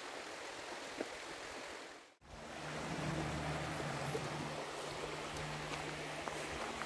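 Shallow, rocky stream flowing: a steady rush of water. About two seconds in, the sound drops out briefly and comes back louder, with a low steady hum underneath.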